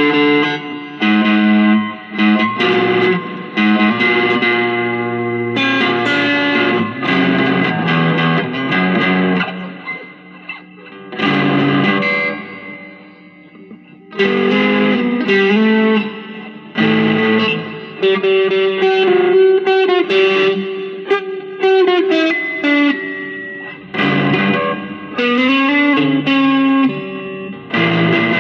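Electric guitar played through a Joyo DC-15 practice modelling amp using its built-in effects: strummed chords and single-note phrases, easing off briefly about thirteen seconds in, with a long held note a little past the middle.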